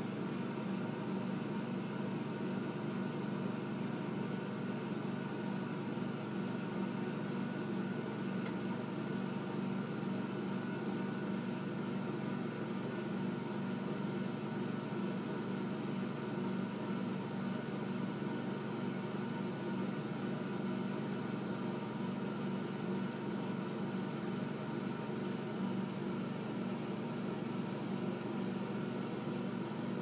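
Steady mechanical hum of a small motor running, with a whirring hiss under it and no change in level.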